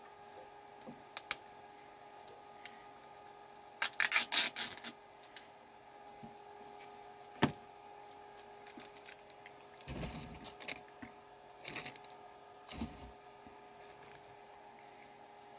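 Small room air conditioner humming steadily, with the clicks and crinkles of a fast-food meal being handled and eaten: a quick run of sharp clicks about four seconds in, a single sharp click a few seconds later, and softer rustling near the end.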